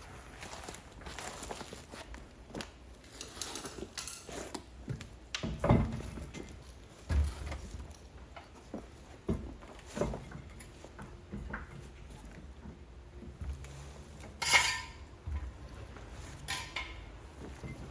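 Hand tools and metal parts being handled and set down during a car brake job: scattered clinks and knocks, a few of them louder, about six, seven and fourteen and a half seconds in.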